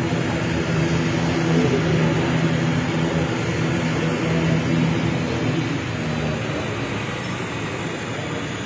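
Turboprop airliner's engines running on the apron, a steady hum over a broad rush of noise. The hum fades out about two-thirds of the way through, and the whole sound slowly grows quieter as the aircraft moves off.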